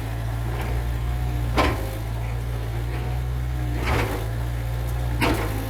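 Heavy construction machine's diesel engine running steadily, with three sharp metallic knocks spread through it.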